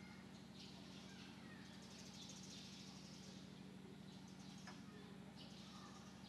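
Near silence: a steady low hum with faint, scattered bird chirps.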